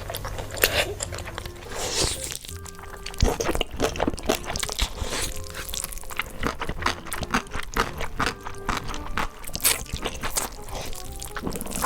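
Close-miked eating: a rapid run of crunchy bites and chewing, over light background music.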